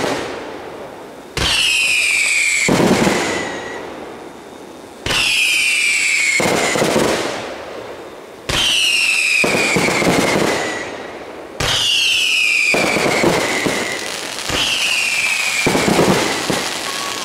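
Fireworks going off in a steady string: about five sudden blasts, roughly three and a half seconds apart. Each carries a whistle falling in pitch over a second or so and a crackling hiss that fades before the next one.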